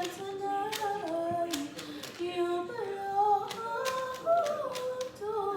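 A voice singing a tune in held notes that step up and down, over quick sharp clicks of a Rubik's cube's layers being turned as it is scrambled.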